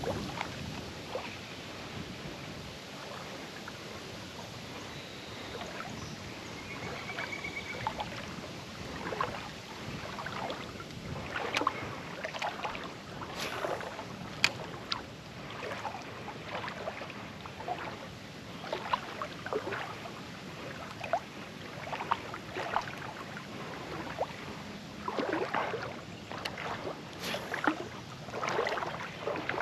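Water splashing and sloshing in uneven, irregular strokes, thicker in two stretches, over a steady noisy background.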